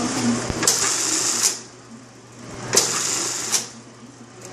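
Industrial button-sewing machine stitching buttons onto fabric. It goes in two short runs, each about a second long and marked by sharp clacks, with quiet pauses between.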